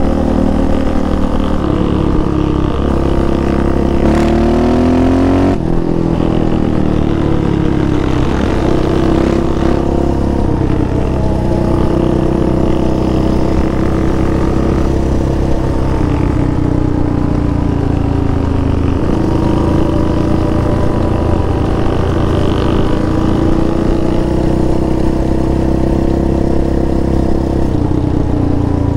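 Yamaha Raptor 700R quad's single-cylinder four-stroke engine under way on pavement, its pitch climbing for the first few seconds, dipping at a gear change about five and a half seconds in, then holding steady at cruising speed.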